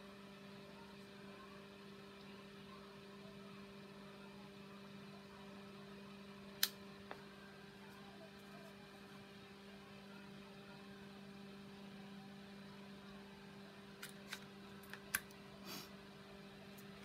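A steady faint hum, with a sharp click about six and a half seconds in and a handful of short light taps and a brief rustle near the end, as hands handle and press flat a sheet of printed paper on a craft table.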